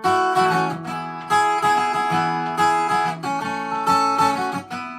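Acoustic guitar strumming chords between sung verses, a fresh chord struck about every second and a quarter and left to ring.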